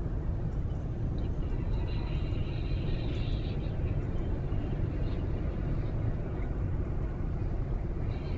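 Steady low rumble of wind buffeting the microphone by an open pond. Faint high chirps come through about two seconds in and again near the end.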